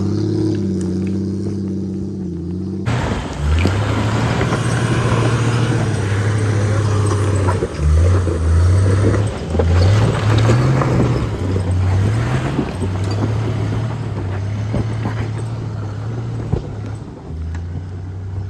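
Off-road vehicle's engine revving in repeated surges, its pitch climbing several times, over tyre and trail noise, as it drives up a steep hill. For the first few seconds the engine note is muffled and steady, then it changes abruptly to the fuller revving.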